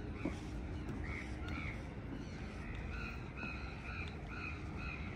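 Birds calling in a series of short, repeated calls, several a second in the second half, over a low steady background rumble.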